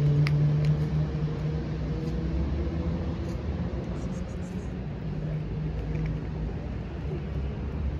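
A motor vehicle engine running steadily at idle, a low hum that eases a little about a second in, with a few faint clicks over it.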